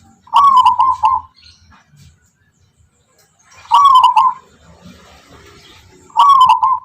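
Zebra dove (perkutut) of the Tuban song type cooing: three short phrases of quick, rhythmic notes, about three seconds apart.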